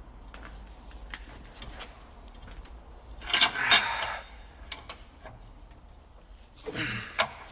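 Metal tools and parts clinking and scraping while a leaf spring bush is pressed in with a bench vise, with scattered small clicks, a louder clatter about three seconds in and another near the end.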